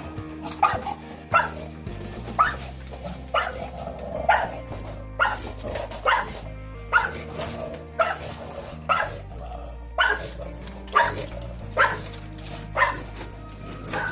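Bulldog barking over and over in short sharp barks, about one a second, over background music.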